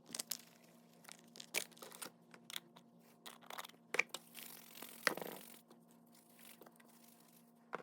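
Dry, air-dried reformed gym chalk being crushed and crumbled: a scatter of sharp crackles and snaps, with a longer gritty crunch about four to five seconds in.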